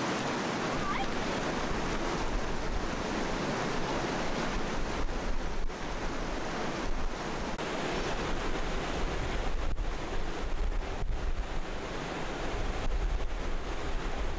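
Wind rushing and buffeting the microphone in uneven gusts, growing stronger in the second half.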